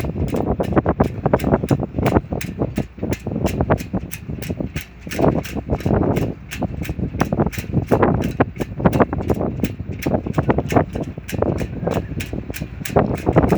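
Wind buffeting the microphone in uneven gusts, with a fast, steady run of clicks.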